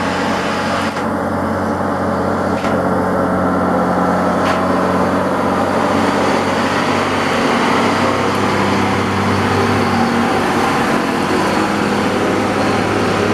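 Diesel engines of old Mercedes-Benz trucks pulling uphill, a steady low drone that grows louder over the first few seconds as a truck passes close. A few sharp clicks sound in the first five seconds.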